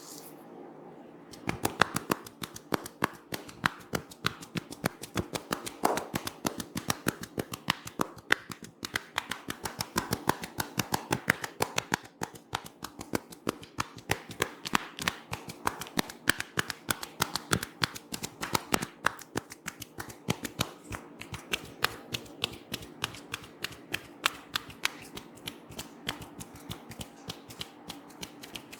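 Rapid, rhythmic hand tapping on the head during a head massage: a steady run of crisp slapping clicks, several a second, starting about a second and a half in.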